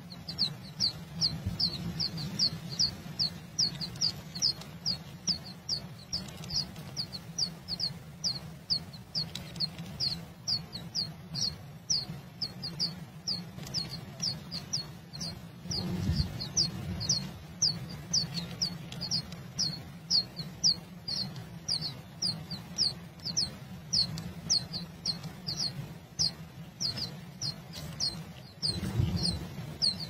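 Blue rock thrush nestlings begging: a long, even run of short, high, falling chirps, about three a second, over a low hum.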